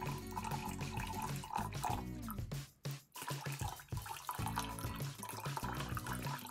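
A stream of water pouring and splashing onto a block of ice and the plastic toy trains frozen in it, over background music. Both drop out briefly about three seconds in.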